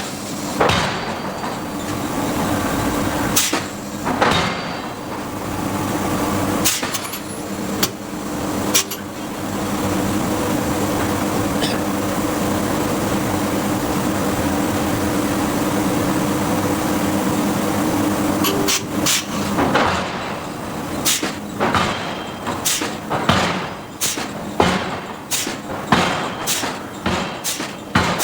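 Hydraulic forging hammer shop: a steady machinery hum broken by a few single sharp blows, then about two-thirds in the hammer strikes the steel in a quick, even run of blows, roughly two a second.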